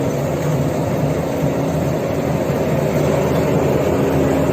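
A steady, loud mechanical rumble with a hiss and a faint low hum, starting abruptly.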